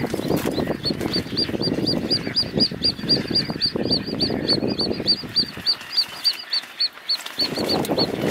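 Little grebe chick peeping: a fast, steady run of short, high chirps, about five a second, over a rough low background noise.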